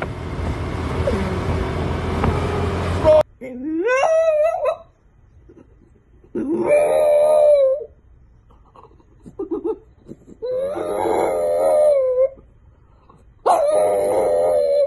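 French bulldog howling: four drawn-out howls with pauses between them, the first sliding up in pitch. They are preceded by about three seconds of rushing wind and street noise that cuts off suddenly.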